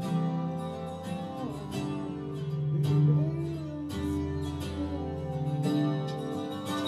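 Live instrumental music: an acoustic guitar strumming chords, with a melody line that glides in pitch above it.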